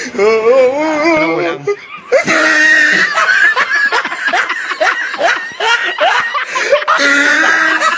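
Loud laughter from several people, mixed with voices.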